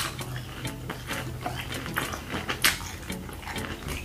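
Close-miked chewing of a sauced fried chicken wing: a string of irregular wet mouth clicks and smacks, with a steady low hum underneath.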